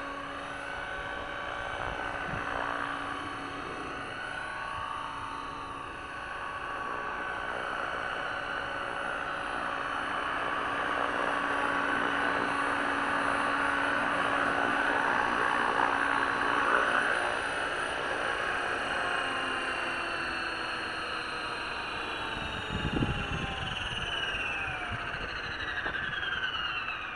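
Hausler 500 SE radio-controlled helicopter's motor and rotor whining steadily in flight. A few low knocks come about 23 seconds in, as it sets down on its home-built landing gear, and over the last few seconds the whine falls in pitch as the rotor spins down.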